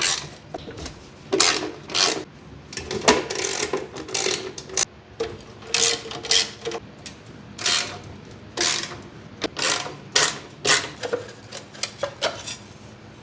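Hand tools working the fasteners of a Honda ATC70's engine side cover: short, irregular bursts of mechanical tool noise, roughly one or two a second.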